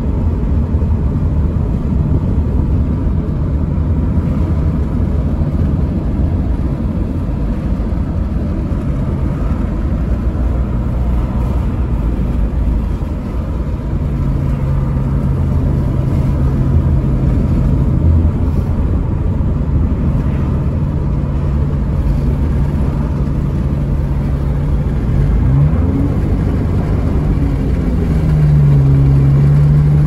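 Road and engine noise inside a moving car: a steady low tyre rumble, with an engine hum coming in about halfway, a brief rising pitch and the hum growing louder near the end.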